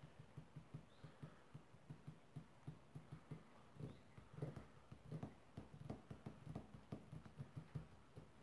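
Faint, soft tapping in a quick, fairly even rhythm of about three to four taps a second, some taps a little louder than others, over near silence.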